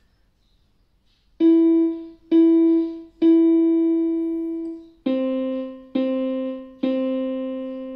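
Yamaha electronic keyboard playing six single notes in a piano tone, starting about a second and a half in: E three times with the third held longer, then C three times with the last held. It is a slow beginner's exercise played one finger at a time.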